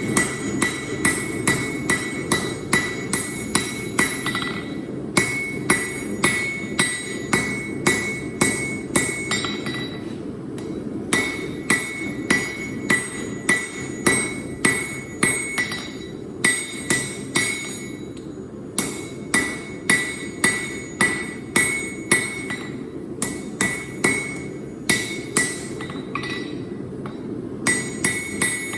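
Hammer striking hot Damascus steel on an anvil, about two to three blows a second, each blow ringing. The blows come in runs broken by short pauses, over a steady low rumble.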